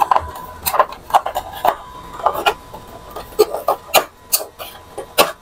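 Irregular series of sharp clicks and knocks from the plastic housing of an Epson L121 inkjet printer being handled and fitted back together as its cover is closed up after a repair.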